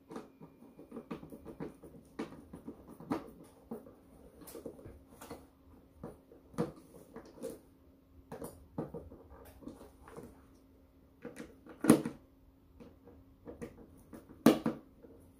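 Hand screwdriver driving a bolt that holds the HID ballast to a plastic headlight housing: a run of irregular scratchy clicks and creaks as the screw turns and the housing shifts, with two louder knocks near the end.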